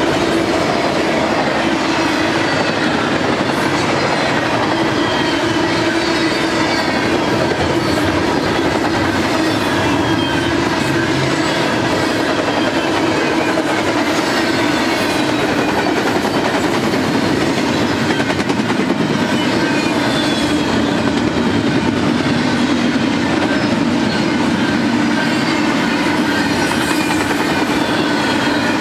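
Double-stack intermodal freight train's container-laden well cars rolling past: a steady, loud rumble and clatter of steel wheels on rail, with a held hum and repeated high squeals that slide down in pitch.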